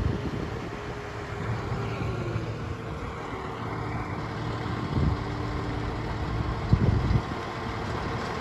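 Large diesel engine running steadily, with low thumps about five and seven seconds in.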